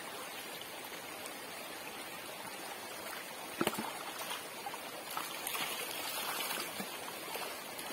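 Shallow stream running and trickling over rocks close around the microphone, with one brief sharp knock a little past halfway.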